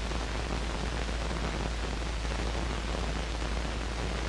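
Steady hiss with a low hum underneath, the background noise of an old film soundtrack, with no other sound standing out.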